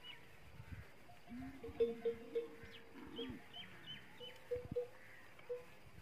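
Camel neck bells clanking irregularly as the herd grazes and moves, with a low animal call now and then.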